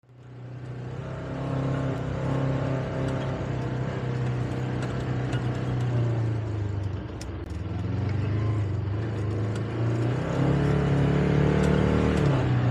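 Polaris Ranger XP 1000 side-by-side's engine running as it drives over rough grass, with the odd knock and rattle from the buggy. The engine note dips about halfway through and climbs again near the end.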